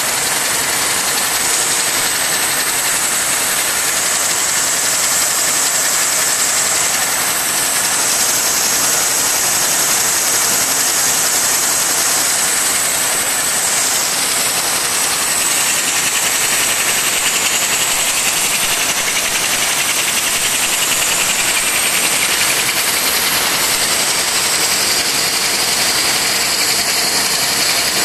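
A Moll folding machine running at production speed, about 40,000 pieces an hour. Its belts, rollers and paper make a loud, steady mechanical rush with a strong high hiss.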